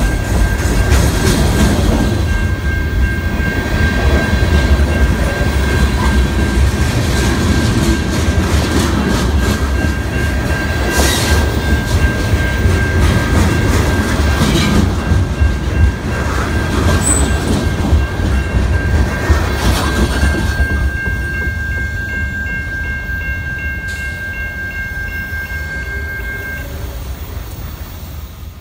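Freight cars rolling past at a grade crossing: a steady rumble with the clack of wheels over rail joints and a couple of sharp knocks, under a steady high-pitched tone. The rumble fades over the last several seconds as the end of the train goes by, and the tone stops shortly before the end.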